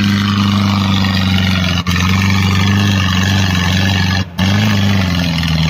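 Jeep CJ7 engine running hard at steady high revs as it climbs a steep dirt slope. The pitch holds nearly level, and the sound drops out very briefly twice.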